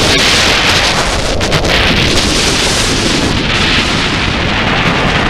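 Loud, steady rush of wind buffeting the microphone as a launched steel roller coaster train runs at speed, with a few quick knocks about a second and a half in.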